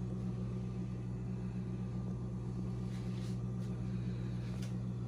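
Steady low machine hum of kitchen equipment running, with a few faint light ticks.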